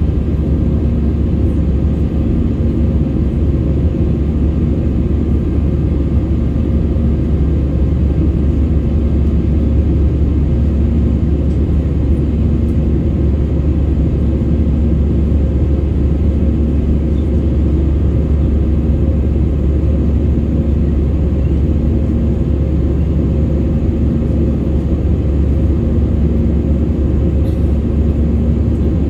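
Steady jet engine and airflow noise in the cabin of an Airbus A320-family airliner climbing after take-off: a loud low rumble, with a droning tone that swells and fades every couple of seconds.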